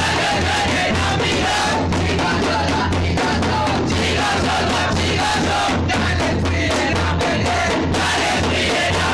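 Fast, loud drumming on a large bass drum and other drums, with a crowd of students chanting and shouting along.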